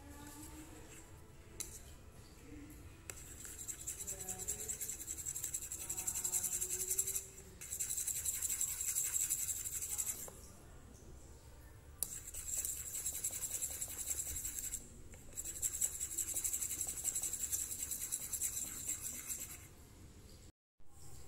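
Fork whisking a thick dalgona coffee mixture in a bowl: fast, rhythmic scraping and clicking of the tines against the bowl. It comes in four spells of several seconds with brief pauses, starting about three seconds in.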